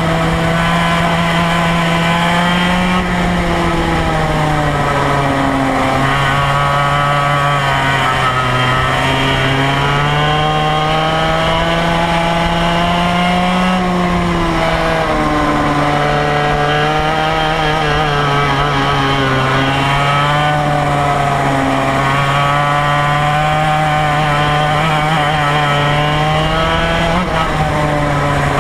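Go-kart engine running at speed, heard close up from on board the kart, its pitch rising over several seconds as the kart accelerates and dropping back as the driver lifts for corners, over and over through the lap.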